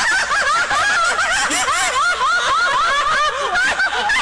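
Many people laughing together after a joke's punchline: a steady wash of overlapping laughter with no talk.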